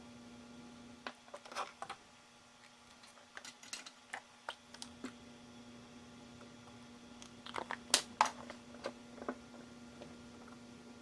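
Scattered small clicks and taps of hand tools and parts being handled on a repair bench, clustered in short runs with the sharpest pair about eight seconds in, over a steady electrical hum.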